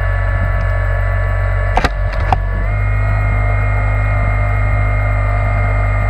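The remote control bait boat's electric motors running steadily with a hum and whine, stepping up slightly in pitch about three seconds in. Two sharp clicks come about two seconds in.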